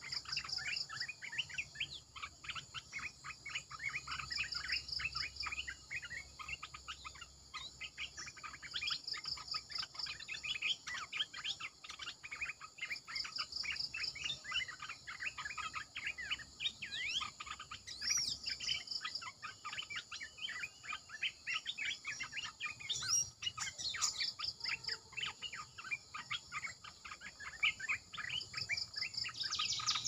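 Olive-winged bulbuls calling: a dense run of rapid chattering chirps, with a short high trill recurring every few seconds.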